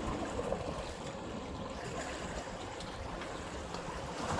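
Seashore ambience: a steady low rumble of wind on the microphone over the wash of the sea.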